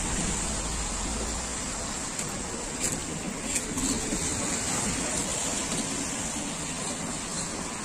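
Steady street noise of traffic on a wet road, a continuous hiss with no clear engine tone, with two brief light clicks about three seconds in.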